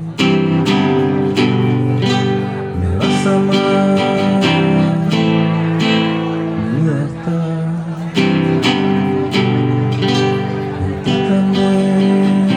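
Live music: an instrumental passage of a song between sung lines, with chords struck about twice a second over held notes.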